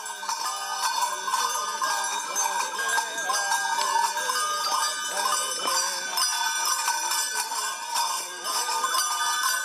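Music of many small bells jingling continuously over a wavering melodic line.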